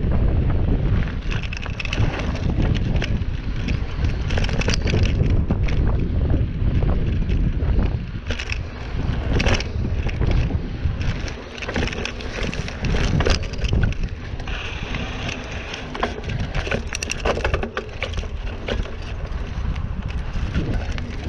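Wind rushing over the microphone of a riding mountain bike, with the bike knocking and rattling over bumps on a dirt trail in many sharp clicks.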